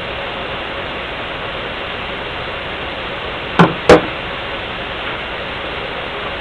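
Steady hiss, broken about three and a half seconds in by two sharp knocks a fraction of a second apart: metal hardware being handled while unbolting a CAV diesel injection pump.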